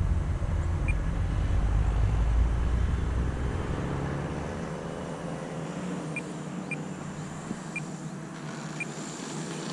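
Electric RC airplane in flight on a landing approach: a steady rushing noise from its motor and propeller mixed with a low rumble, loudest a couple of seconds in and fading over the second half.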